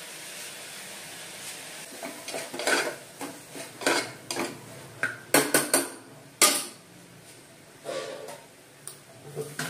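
Stainless steel kitchen tins and lids clinking and clattering as they are handled on a shelf: a string of sharp metallic clinks, several in quick succession in the middle.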